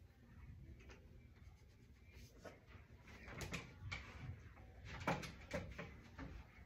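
Pencils and small movements at a classroom table while children write: scattered soft taps and knocks, the sharpest one about five seconds in.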